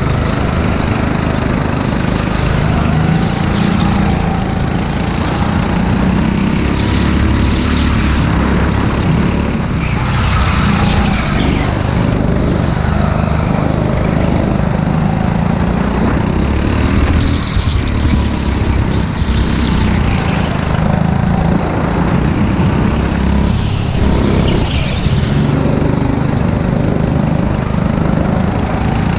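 Go-kart's small engine running hard through a lap, its pitch rising and falling as the kart speeds up on the straights and slows for corners.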